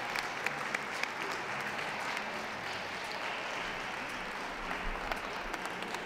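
Audience applauding steadily, with a few sharper single claps standing out in the first second or so.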